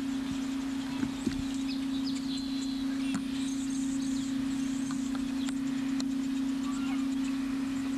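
Birds chirping and calling along the shore, over a steady low hum, with two light knocks about a second in.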